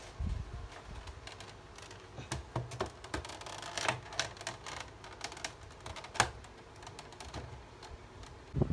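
Scattered clicks and light knocks of things being handled and set down on a desk, as a laptop is placed and adjusted on its stand.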